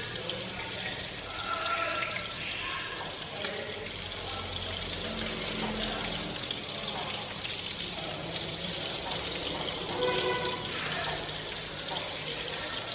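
Whole climbing perch shallow-frying in oil in a nonstick pan over low heat: a steady sizzling hiss.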